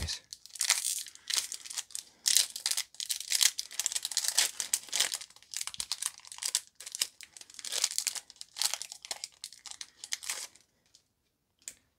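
Foil wrapper of a Pokémon trading-card booster pack crinkling and tearing as it is pulled open by hand, in irregular crackles that die away near the end.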